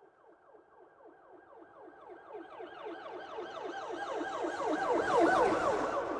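Police car siren on a fast yelp, its pitch sweeping up and down about five times a second. It grows steadily louder as the car approaches and is loudest about five seconds in, with a rush of road noise as it passes, then starts to fade.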